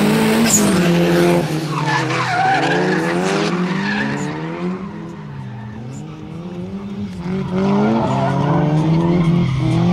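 Two drift cars sliding in tandem, their engines revving up and down over and over as the throttle is worked, with tyre squeal and skidding. The engines drop back a little in the middle and come back louder near the end.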